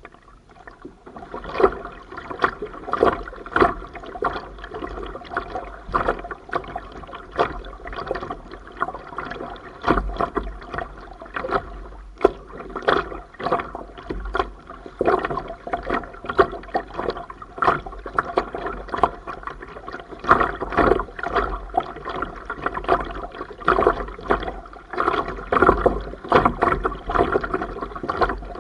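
A kayak being paddled through calm water: water splashing and sloshing against the hull close to the microphone, in an uneven rhythm of about one to two splashes a second that picks up about a second and a half in.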